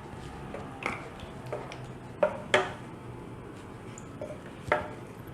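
A few light clinks and knocks of a spoon on cookware, about four spread over a few seconds, with the second-to-last the loudest, while clarified butter is spooned into the pot. A faint steady hum lies underneath.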